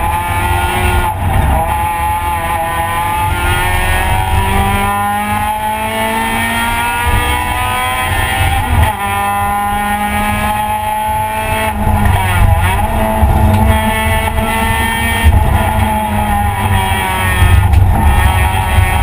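Honda Civic race car's engine heard from inside the cabin at full throttle on track. Its pitch climbs as it accelerates and drops sharply at gear changes about nine and twelve seconds in, over steady road and wind rumble.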